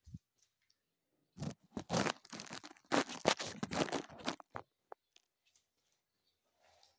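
Phone handling noise: the phone's microphone rubs and scrapes while the phone is set down and propped on the floor. The irregular rustling and crackling starts about one and a half seconds in and lasts about three seconds, after a single soft bump at the very start.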